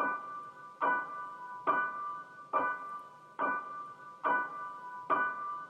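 Music: a single keyboard chord struck about seven times at an even, slow pace, each strike dying away before the next.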